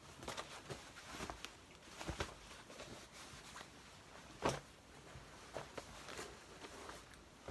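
Denim jeans handled and folded by hand: faint cloth rustling with scattered soft knocks, the sharpest a little past the middle.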